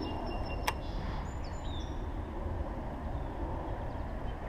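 Steady low outdoor rumble, with one sharp click about two-thirds of a second in and a few brief high bird chirps about a second and a half in.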